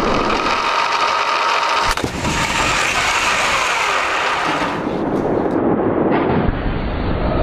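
Side-impact crash test: a sharp bang of impact about two seconds in, amid the rumble of the barrier trolley running along its rail track.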